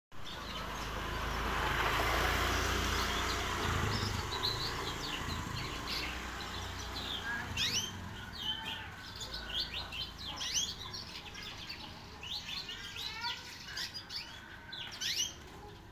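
Young canary chirping: many short, high chirps, coming thick and fast from about halfway through. The first few seconds hold mostly a steady hiss and low rumble before the chirps start.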